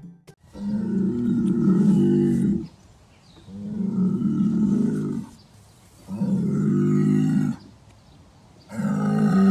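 A horse giving four long, deep calls of about two seconds each with short pauses between, the last still going at the end; strange, demonic-sounding noises made over carrots.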